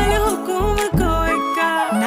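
Background music: a song with a sung melody over a pulsing bass beat.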